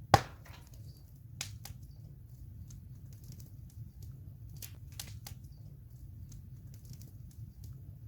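Campfire wood burning: a low, steady rumble of flames with irregular crackles and pops. One sharp, loud pop comes just after the start, and a few smaller snaps follow over the next several seconds.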